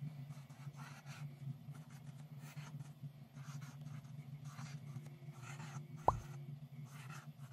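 Brauberg marker's felt tip scratching across black paper in a run of short strokes. About six seconds in, a single short plop.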